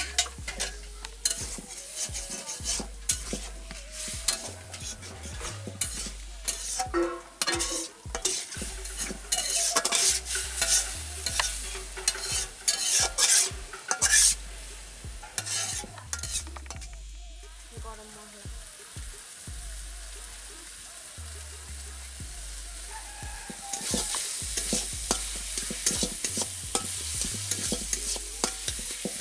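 A long metal spatula stirring and scraping a potato and vegetable curry in a metal kadai, with many clinks against the pan over a steady frying sizzle. Around two-thirds of the way through the clinking stops and only the sizzle goes on, growing louder near the end.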